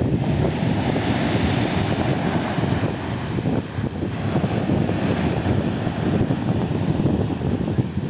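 Storm surf breaking and washing up a pebble beach, with a steady low rumble of wind buffeting the microphone.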